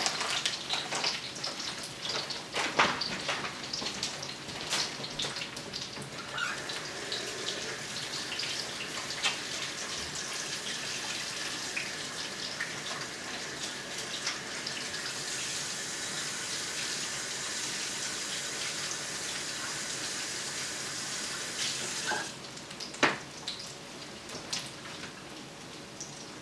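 Breaded okra frying in a skillet of hot oil, crackling as the last pieces go in. From about six seconds in, a kitchen sink tap runs steadily until it is shut off about 22 seconds in, followed by a sharp knock.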